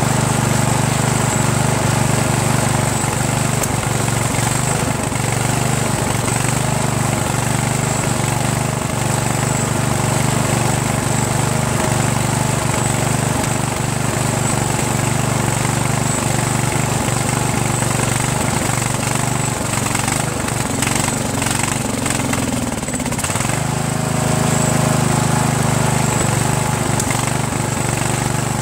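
Briggs & Stratton 14.5 HP OHV single-cylinder engine on a Craftsman LT1000 lawn tractor running steadily at a fast idle. About twenty seconds in, its note wavers and sags for a few seconds before it settles again. The engine runs well only on choke and wants to stall with the choke off, which the owner puts down to a carburetor that is still not completely clean.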